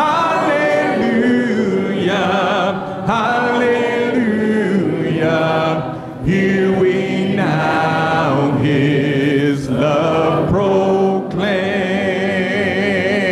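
Congregation singing a hymn's "Hallelujah" refrain a cappella in four-part harmony, in short sung phrases. Near the end it settles into one long held closing chord.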